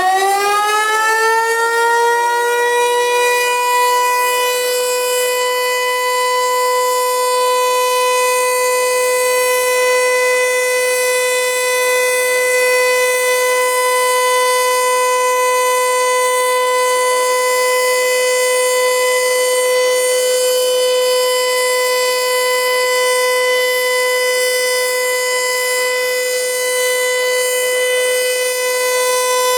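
Federal Signal Eclipse 8 outdoor warning siren winding up for its test, its pitch still rising for the first few seconds and then holding one steady tone.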